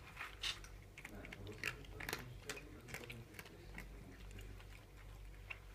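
Cats chewing their food: irregular crunchy clicks, a few a second.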